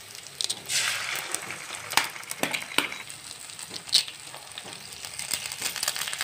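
Onion and spice masala frying in oil in a steel pan, crackling steadily with a louder sizzle about a second in. Several sharp knocks sound as two eggs are cracked and dropped into the hot pan.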